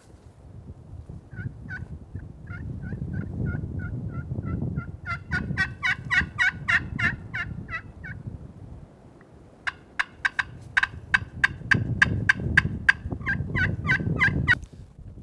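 Wild turkey-style yelping: two long runs of short, evenly repeated notes, about four a second, the second run louder, over a low rumble.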